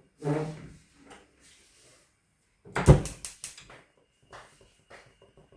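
A short clatter of several sharp knocks about three seconds in, as kitchen utensils or cookware are handled and set down, with a few faint taps after it.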